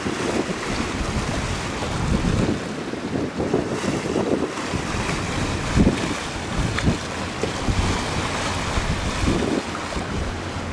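Wind buffeting the microphone in irregular gusts that rumble low, over a steady hiss.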